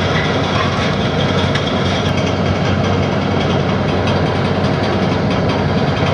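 Heavy demolition machinery's diesel engine running steadily, with a constant mechanical hum.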